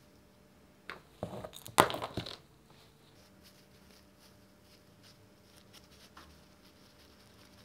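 Small rusty metal brake parts clicking and scraping as gloved hands pull the pivot bolt, spacer and washers of a caliper brake apart: a short cluster of clicks and rustling about a second in, with one sharp click the loudest, then faint ticks of handling.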